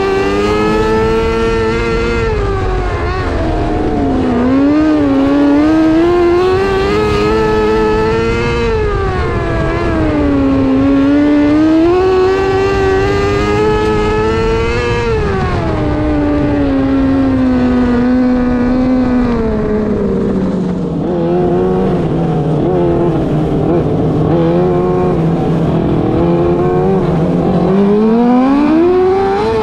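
Micro sprint car engine running at racing speed, its pitch repeatedly rising and falling. A little over halfway through it drops to a lower, steadier note for several seconds, then climbs sharply again near the end.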